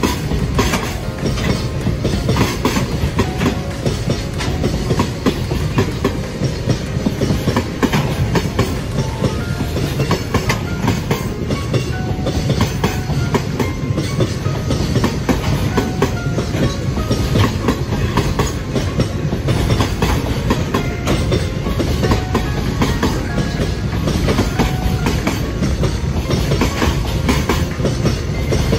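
Container wagons of a long freight train rolling past, their wheels clacking steadily over the rail joints.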